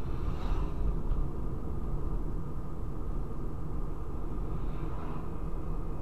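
Steady low road and engine rumble inside a moving car's cabin, with two brief whooshes as oncoming vehicles pass: about half a second in, and again near the end.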